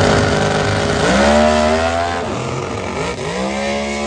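Super Gas drag race cars launching and accelerating hard down the strip. The engine note climbs and levels off twice as the transmission upshifts, fading as the cars pull away.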